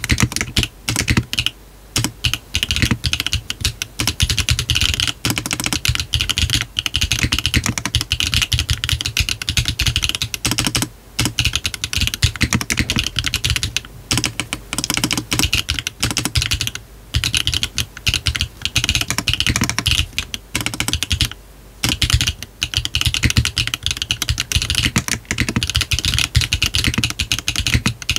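Continuous fast typing on a GDK DK1-TKL custom mechanical keyboard with a brass bottom case, built with Yogurt switches on a 1.6 mm PCB, no foam, hard bean gaskets, and cherry-profile PBT keycaps. There are several short breaks in the typing.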